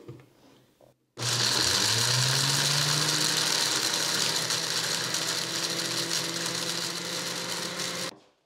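Personal blender motor switched on about a second in, its pitch rising as it spins up, then running steadily on its low-speed grind setting while it grinds dried celery pieces into powder. It cuts off abruptly near the end.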